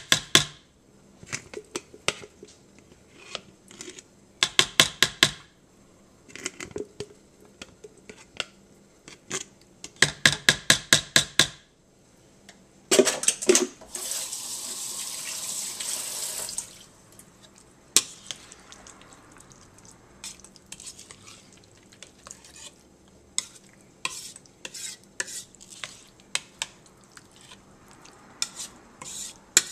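Slotted metal spoon stirring potato salad in a ceramic bowl, clinking and scraping against the bowl, with two runs of quick repeated clinks about a third of the way in and again around ten seconds in. A steady hiss lasts a few seconds midway.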